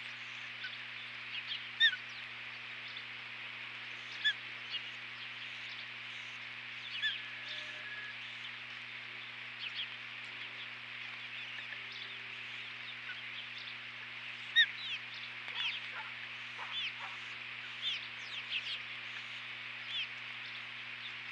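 Ospreys at the nest giving short, high whistled chirps that drop in pitch, scattered singly and in quick runs, over a steady hiss and a low steady hum.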